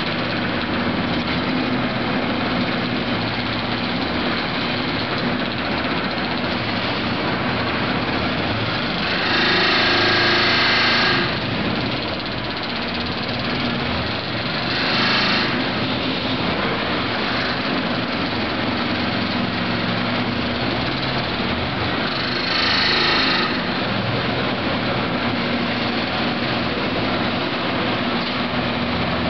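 Excavator-mounted hydraulic vibratory hammer (MKT V-5Esc) clamped onto a steel pile and vibrating it into the ground, over the excavator's diesel engine, in a loud, steady mechanical drone. Three times, about ten, fifteen and twenty-three seconds in, it grows briefly louder and harsher.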